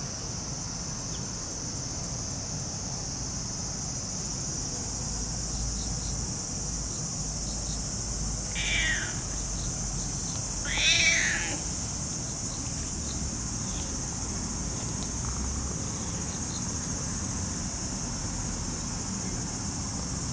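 A cat meowing twice about halfway through, each a short call falling in pitch, the second louder, over a steady high insect chorus.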